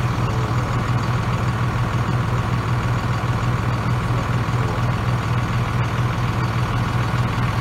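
An engine idling steadily, a constant low drone with no change in speed.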